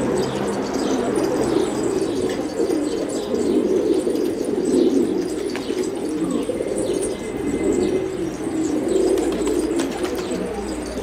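A flock of domestic pigeons cooing together, many low coos overlapping into one continuous chorus, with faint short chirps and ticks above it.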